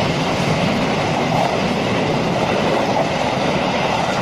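Express passenger train's coaches passing close by at speed: a loud, steady rush of wheels running on the rails.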